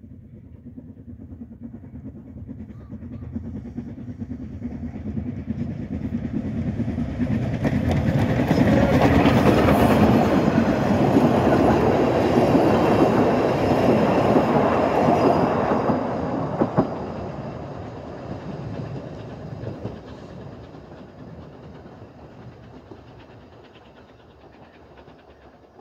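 Isle of Man Railway narrow-gauge steam train approaching, passing close by with its carriage wheels clicking over the rail joints, then fading away as it goes off down the line. It is loudest about a third of the way in and peaks for about eight seconds, with a single sharp knock as the last carriage goes by.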